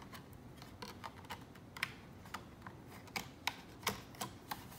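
Thin metal RAM cover on a Dell Precision 7530 laptop being set in place and pressed down by fingers: a string of light, irregular clicks and taps, the sharpest in the second half.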